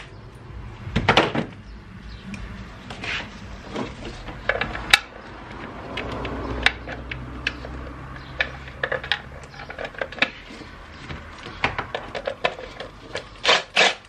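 Gloved hands working plastic and metal parts in a car's engine bay: irregular clicks, knocks and rubbing, with a few sharper knocks near the start and the end.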